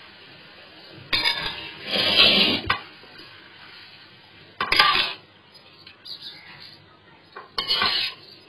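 Soaked rice being poured from a metal bowl into an aluminium pot of boiling water, with the bowl clinking and scraping against the pot rim in three spells.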